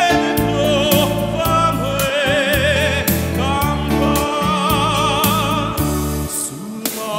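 Male singer singing into a microphone with a wide vibrato on long held notes, over live keyboard and guitar accompaniment with a steady bass line and beat. The bass drops out about six seconds in, and the voice pauses briefly near the end.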